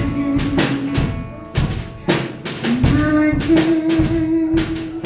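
Live band playing the closing bars of a worship song: drum kit hits with cymbal crashes, and a long note held through the second half.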